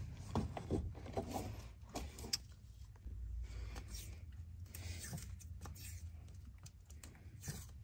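Hands peeling electrical tape off a door wiring harness and its rubber boot: scattered small crinkles, rustles and plastic clicks over a low steady hum.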